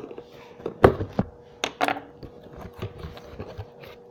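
A cardboard box being opened and handled: a few sharp knocks and rustling, with a faint steady hum underneath.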